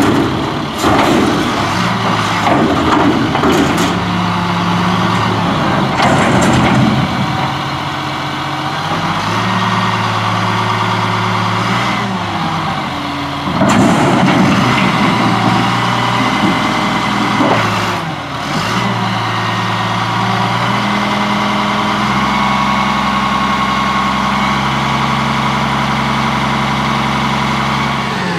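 Diesel engine of a 1999 Crane Carrier garbage truck running, its revs stepping up and down as it drives the hydraulic lifting arm of the Impac CSL body. Bursts of clatter and rushing noise come in the first several seconds and again about halfway through. The engine then holds a steady, higher speed.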